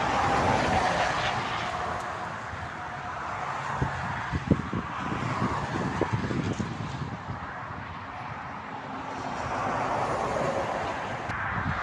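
Motorway traffic going past: tyre and engine noise swells and fades as vehicles approach and pass, several times over.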